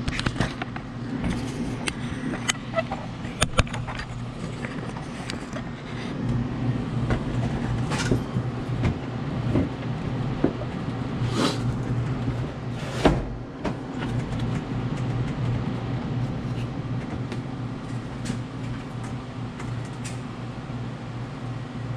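Scattered clicks and metallic knocks of parts being handled at a Follett ice machine's auger bearing housing and shaft, with the sharpest knock about 13 seconds in, over a steady low hum.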